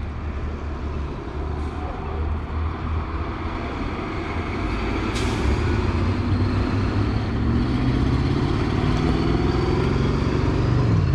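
A vehicle engine running steadily, growing louder about halfway through, with a single sharp click near the middle.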